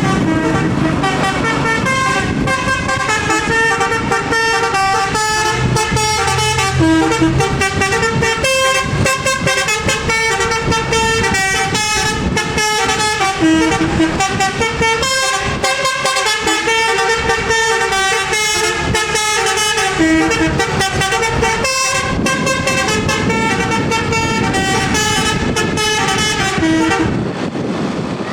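Bus 'telolet Basuri' multi-tone air horn playing a long melody of quickly changing notes, stopping near the end.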